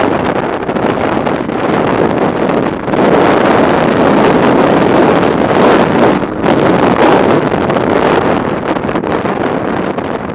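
Heavy wind rush on the camera microphone over the running flat-twin engine and tyres of a BMW R 1200 GS Adventure ridden fast on gravel. The noise dips briefly twice and eases slightly near the end.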